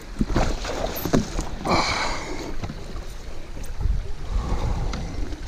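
Water splashing and sloshing around a paddleboard in a shallow river, in several irregular strokes, the loudest about two seconds in, with wind rumbling on the microphone.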